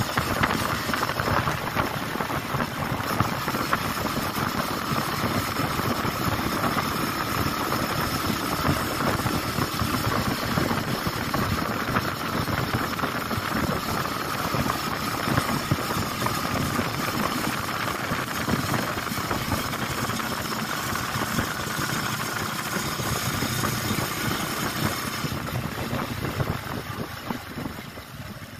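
Motorcycle running at a steady cruise, its engine mixed with wind and tyre noise on a wet road. About three seconds before the end it eases off and gets quieter as the bike slows.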